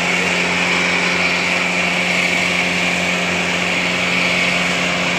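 Diesel engines of two Mahindra tractors, a 575 DI and a 585, running steadily under load while they pull against each other in a tug-of-war. The engine note holds a constant pitch throughout.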